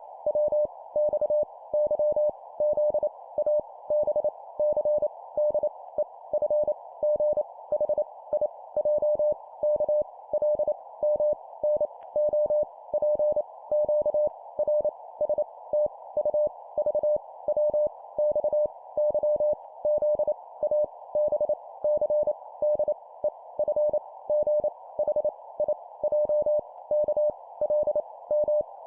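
Morse code (CW) at 25 words per minute, sending letters: a single mid-pitched tone keyed on and off in quick dots and dashes, over a steady narrow band of hiss.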